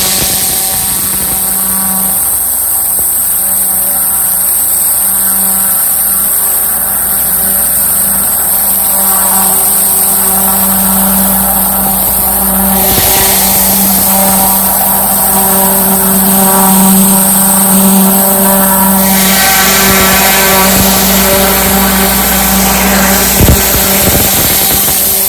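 Commercial 10-gallon-a-minute, 3,500 PSI cold-water pressure washer running at a steady speed while its high-pressure spray hisses against concrete. The hiss gets louder about halfway through and again later.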